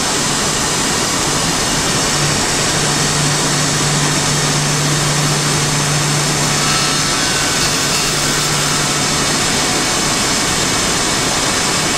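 T8 desktop CNC engraver's spindle running with its engraving bit milling traces into a copper-clad PCB: a steady, loud machining noise. A low hum joins about two seconds in and fades near the end.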